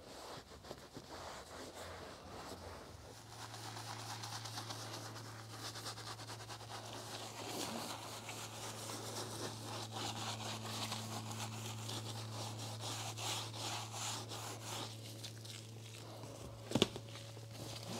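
Detailing brush scrubbing foamed interior cleaner into a leather car seat, a fast run of rubbing strokes. A steady low hum comes in about three seconds in, and a single sharp knock sounds near the end.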